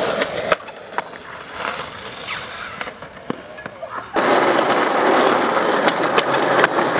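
Skateboard wheels rolling on concrete, with sharp clacks of the board. The rolling drops away about half a second in, leaving a quieter stretch with scattered clicks, and comes back louder about four seconds in.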